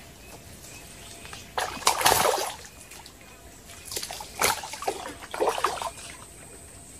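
Water splashing and sloshing in a shallow stream in three bursts, the loudest about two seconds in, while a hooked fish snagged at the bank is being retrieved.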